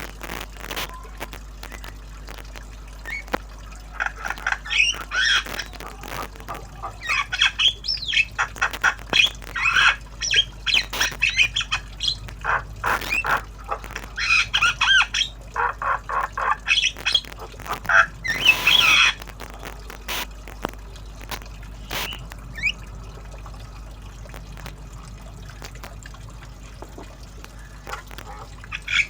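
Javan myna chattering in quick runs of short, harsh squawks and chirps, as a tame bird practising its calls. The calls come thick for most of the first two-thirds, then thin out to a few single chirps.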